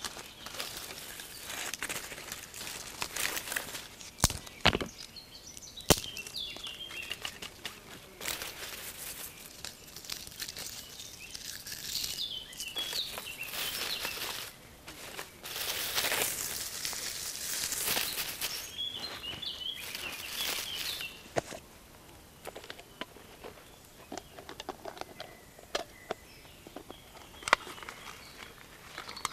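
Dry sticks and twigs rustling and crackling as they are picked through by hand, with a few sharp snaps about four to six seconds in. Small birds chirp now and then.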